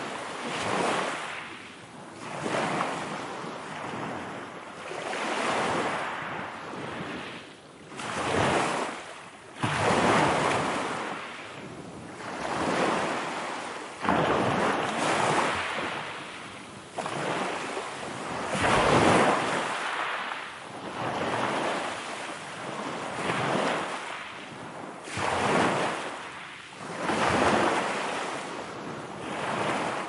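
Sea waves breaking and washing ashore: a surge of surf about every two to three seconds, some breaking suddenly, then falling away.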